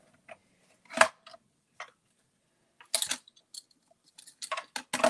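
Scattered clicks and knocks of acrylic cutting plates being cranked through a Mini Big Shot die-cutting machine and lifted out. The sharpest knocks come about a second in and about three seconds in, with a quick run of clicks near the end.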